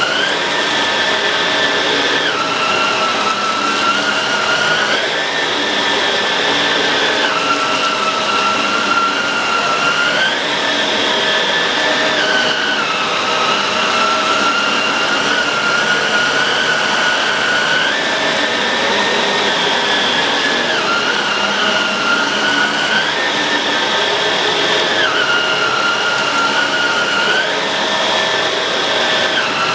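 Shark Rotator Pro Lift-Away NV500 vacuum cleaner running steadily, its motor whine stepping up and down in pitch every two to three seconds.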